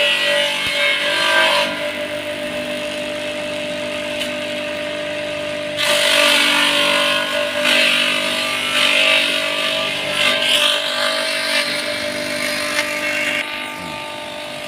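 Homemade wooden-box chopper shredding papaya leaves and stalks: its motor keeps a steady hum throughout, and a loud shredding noise rises over it whenever leaves go into the blades, for the first couple of seconds and again from about six seconds in until near the end, when the motor runs on unloaded.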